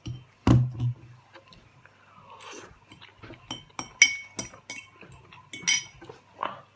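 Repeated sharp clinks and taps of small hard objects, a quick cluster of them about four to six seconds in, with a duller low thump about half a second in.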